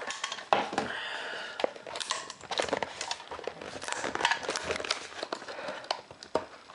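Hands opening a cardboard retail box with a clear plastic lid: crinkling and rustling of the packaging, broken by many sharp clicks and taps.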